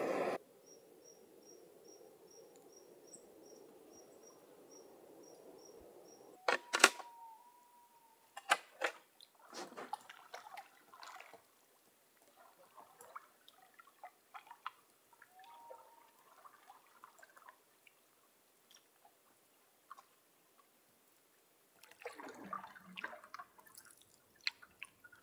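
Canoe paddle strokes on calm lake water: the blade dips and splashes and water drips off it, with a few sharp knocks about six and eight seconds in. The sounds are sparse and faint, with gaps between strokes.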